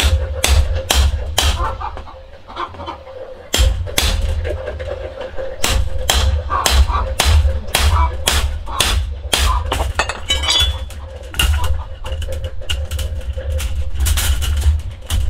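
Repeated sharp knocks of hand-tool work, one or two a second with a short pause about two seconds in, while chickens cluck.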